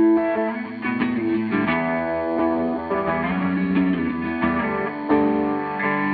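Instrumental background music: sustained notes that change every second or so.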